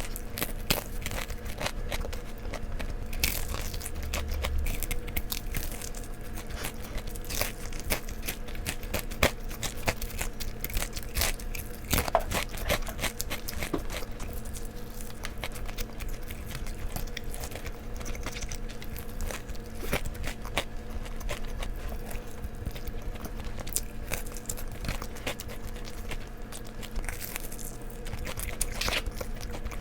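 Close-up crunching and chewing of crispy-coated fried chicken reheated in an air fryer: many crisp, crackly bites and chews in quick succession throughout.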